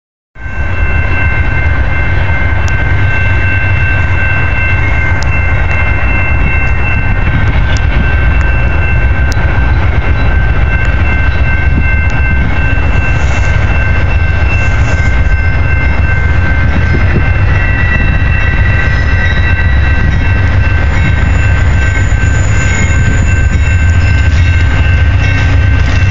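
Amtrak Hiawatha passenger train approaching: a loud steady low rumble with several steady high tones over it.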